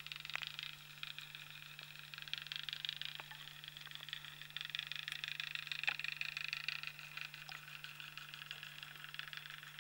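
Underwater ambience of a rocky, seagrass-covered seabed: a dense, continuous crackle of fine clicks, with a few sharper single clicks and a steady low hum underneath.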